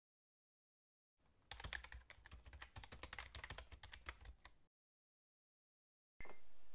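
A rapid, irregular run of computer-keyboard typing clicks, a typing sound effect, starting about a second in and lasting about three and a half seconds. Near the end a steady hiss comes in.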